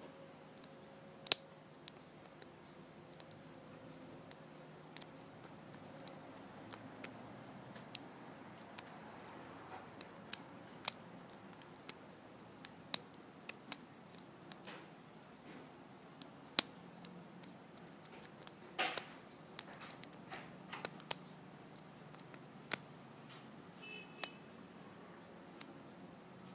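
Lock pick and tension wrench working the five pin stacks of a Squire Leopard LP10 brass padlock: irregular small metallic clicks and taps, a few much sharper than the rest.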